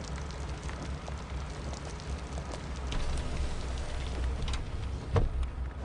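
Mazda RX-7 FD's rotary engine idling, heard in the cabin as a steady low pulsing rumble, with one sharp click about five seconds in.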